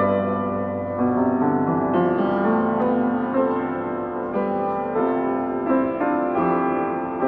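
Slow piano music, notes and chords struck about once a second.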